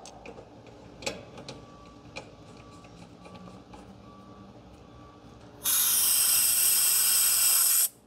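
A few faint clicks, then about six seconds in a loud, steady hiss of R-454B refrigerant rushing out through the open manifold and hose, purging the air from them; it cuts off sharply after about two seconds as the valve is shut.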